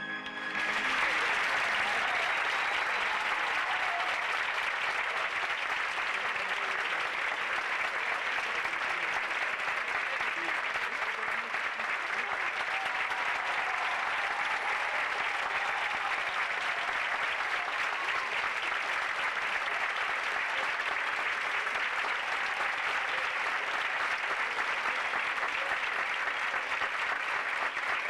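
Theatre audience applauding: a dense, sustained ovation that breaks out as the recorded orchestral music ends right at the start.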